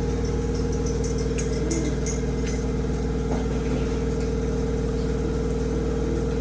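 A steady mechanical hum with one strong constant tone, unchanging throughout, with a few faint clicks over it.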